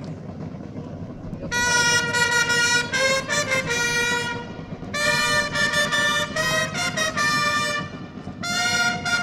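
Fanfare on clarions, long natural herald trumpets, played in three phrases of held notes that step up and down in pitch. The first phrase comes in about a second and a half in, and the last begins near the end.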